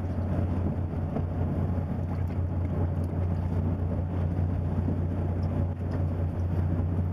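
Sportfishing boat's engine running with a steady low drone, under wind and sea noise.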